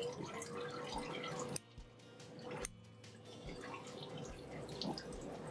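Faint small wet clicks and ticks of stainless fish-bone tweezers pulling pin bones out of a raw horse mackerel fillet, with two sharper clicks about a second and a half and two and a half seconds in, over a steady faint tone.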